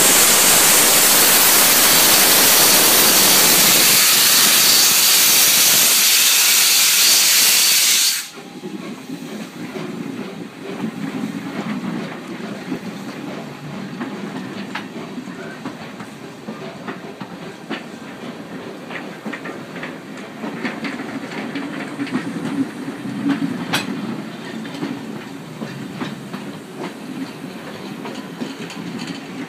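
SECR P class tank locomotive venting steam: a loud, steady hiss that cuts off suddenly about eight seconds in. After it, the train's Mk1 coaches roll past with a low rumble and light clicks from the wheels.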